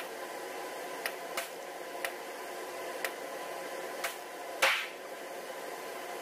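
Unsuppressed CZ 457 .22 LR bolt-action rifle being fired and its bolt worked: a run of short sharp cracks and clicks about a second apart. The loudest comes a little over four and a half seconds in.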